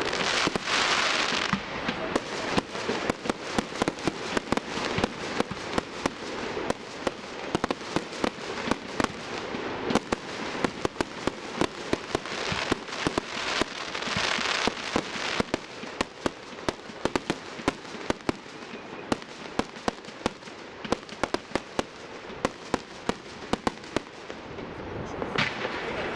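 Aerial fireworks display: a rapid, continuous string of pops and bangs from bursting shells and crackling stars, with several loud hissing rushes, one of them near the end.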